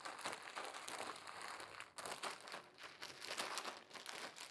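Clear plastic mushroom grow bag crinkling and rustling as it is shaken and rotated to mix colonized grain into the substrate, with a brief pause about two seconds in.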